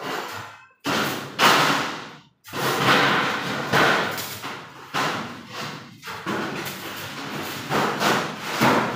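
Electric arc welding with stick electrodes, laying short tack welds on a thin galvanized-iron sheet frame. There are about eight bursts of arc noise, each starting abruptly and dying away within a second or so, with brief silences between some of them.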